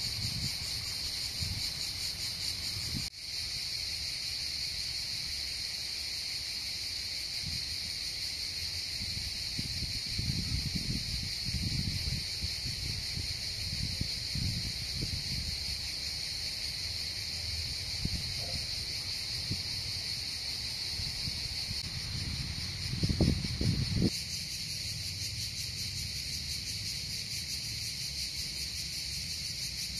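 Steady, dense chorus of insects, heard as a continuous high buzz. Irregular low rumbles come and go underneath, with the loudest about 23 seconds in.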